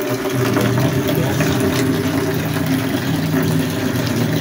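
Mika 10 kg top-load washing machine running steadily: an even motor hum with water churning in the tub.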